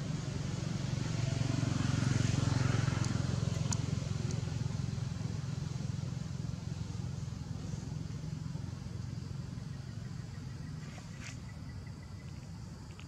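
Low engine rumble that swells over the first few seconds, then slowly fades, with a few faint clicks over it.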